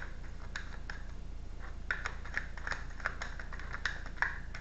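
A deck of tarot cards being shuffled by hand: an irregular run of light clicks as the cards flick and slap against each other, a few sharper ones about two seconds in and near the end.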